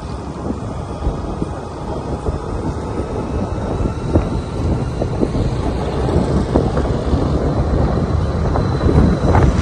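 Ride-along sound from a moving motorcycle: engine and road rumble with wind buffeting the microphone, slowly getting louder.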